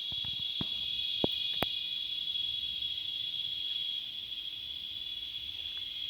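Cicadas singing in a steady, continuous high-pitched drone, with a few sharp clicks in the first two seconds.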